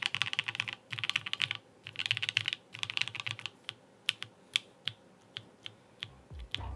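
Typing on a plateless GOK 7V custom mechanical keyboard with L&F ThicThock Marshmallow switches and GMK keycaps: several quick runs of fast keystrokes, then slower single keystrokes. A brief low rumble comes near the end.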